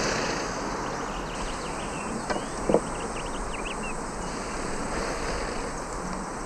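Steady rush of river water, with a single short knock about two and a half seconds in and a few faint high chirps around it.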